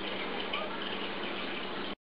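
A steady hiss of background noise with nothing distinct standing out. It cuts off abruptly near the end.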